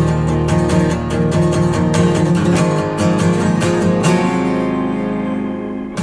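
Background music: acoustic guitar strumming chords, settling on one held chord that rings out from about four seconds in.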